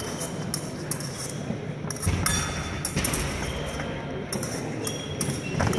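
Épée blades clinking and tapping against each other in a fencing exchange, with scattered sharp metallic ticks and a dull thud of footwork about two seconds in.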